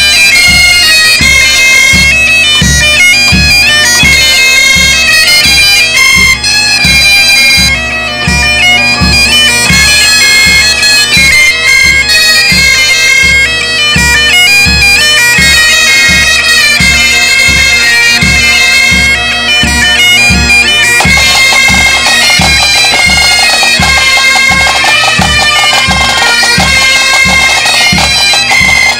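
A Breton bagad playing: bagpipes over a steady drone, with bombardes, snare drums and a bass drum keeping a steady beat about twice a second. The sound thickens about two-thirds of the way through.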